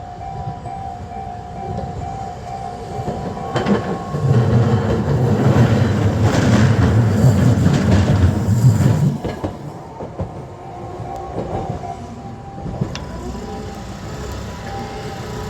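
Kagoshima City tram passing through a level crossing, loudest from about four to nine seconds in as it rumbles over the crossing with a few knocks from the wheels. The crossing's warning bell rings as a repeating tone before it passes.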